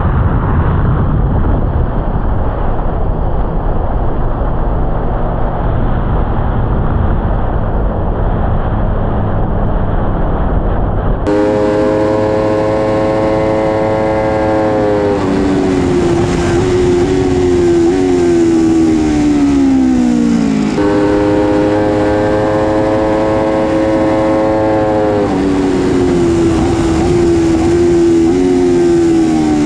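Motorcycle engine heard from the bike itself: first a muffled rumble with wind, then, about eleven seconds in, a clear high-revving note held steady. The note then drops in small steps as the rider shifts down with short rev-matching blips, and this happens twice.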